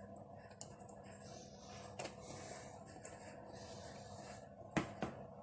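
Faint kitchen handling noise: soft scraping and rubbing, with a click about two seconds in and two sharp clicks near the end.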